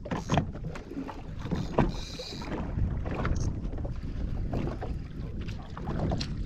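Water lapping and slapping against a jet ski's hull, with wind buffeting the microphone and scattered irregular small knocks and splashes.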